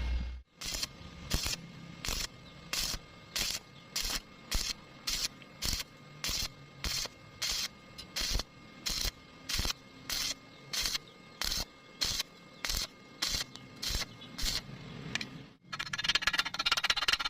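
Welding arc crackling in short, evenly spaced bursts, about one every 0.6 seconds, over twenty in all: the start-stop rhythm of stitch welding. Near the end it cuts off and a louder, continuous crackle takes over.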